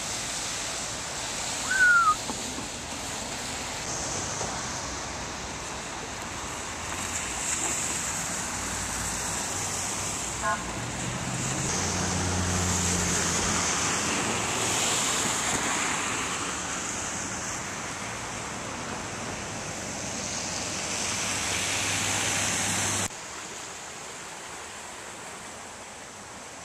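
Floodwater of a swollen river rushing steadily past, with road traffic running through it and a low hum in the middle stretch. A brief high squeak about two seconds in is the loudest moment. The whole sound drops to a quieter rush near the end.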